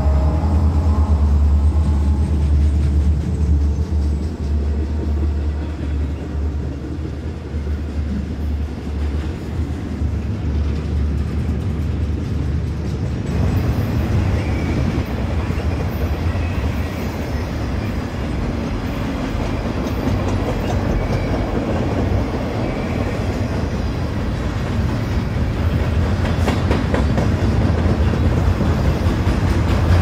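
Electric train running along the track: a steady low rumble, with a brighter rushing noise rising in about thirteen seconds in and continuing.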